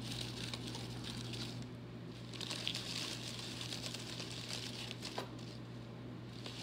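Crumpled brown paper packing rustling and crinkling in the hands as a small glass bottle is unwrapped from it, a steady run of small crackles.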